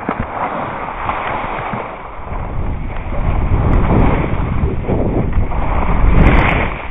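Wind buffeting the action camera's microphone while skiing downhill, the rumble growing louder from about two seconds in as speed picks up, over the hiss of skis sliding on snow.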